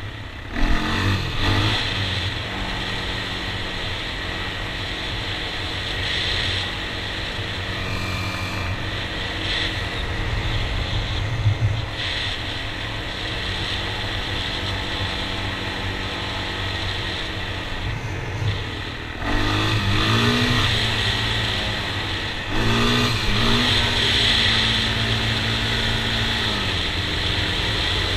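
Honda TRX400EX quad's single-cylinder four-stroke engine running at a steady pace, revving up through the gears about a second in and twice more in the last third, with road noise from the gravel on top.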